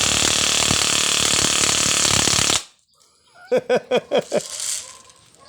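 G&G Firehawk HC05 airsoft electric gun, a high-speed unit, firing a continuous rapid burst on full auto that cuts off suddenly about two and a half seconds in.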